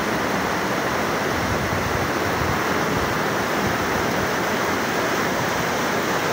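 Steady rush of running water at a water-slide pool, even and unbroken.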